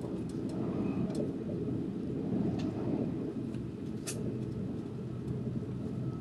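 Moving train heard from inside the carriage: a steady low rumble of the running train, with a few light ticks and rattles, the sharpest about four seconds in.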